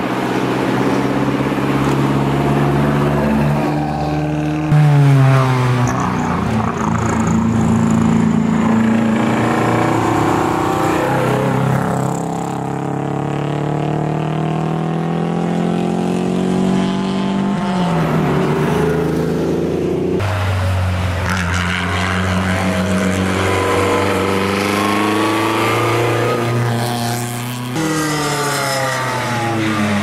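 Historic competition cars accelerating past one after another, their engines revving up through the gears, the pitch rising and then dropping at each gear change. The loudest moment is about five seconds in.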